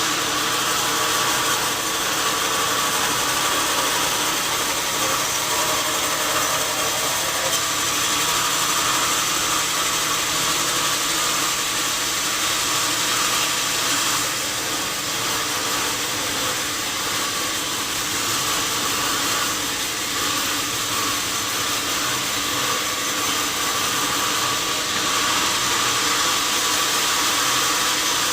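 Sawmill saw running steadily: a dense, even hiss over a steady machine hum, with no breaks or changes.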